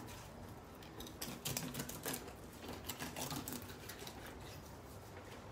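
Knife cutting along a whole salmon's backbone, snipping through the small belly bones: a run of faint crackling clicks, busiest between about one and three and a half seconds in.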